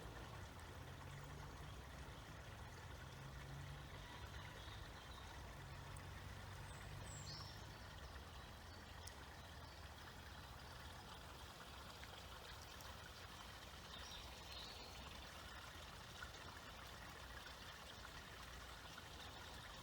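Small woodland stream flowing faintly, a steady, even water sound.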